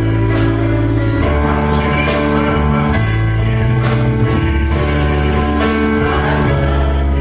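Worship-song music: held chords that change every second or so over a steady light beat, with no clear sung words.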